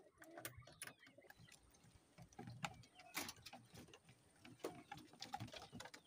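Faint, scattered metal clicks and clinks of a ring-and-hasp latch and its metal clip being fastened on a metal coop door.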